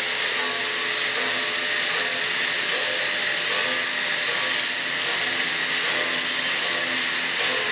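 Kinetic sculpture made of bicycle parts running, its mechanism giving off a steady, rasping mechanical noise.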